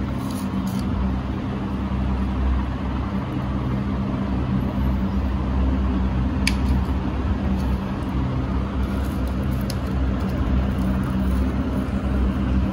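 Steady low machine hum, even in level, with two faint sharp clicks, one about six and a half seconds in and one near ten seconds.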